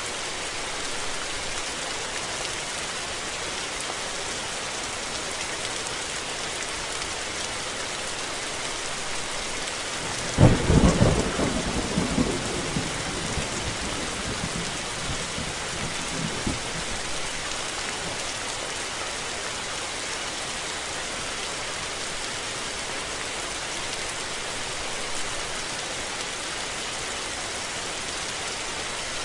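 Steady rain falling, with a sudden sharp thunderclap about a third of the way in that rolls off in rumbles over several seconds.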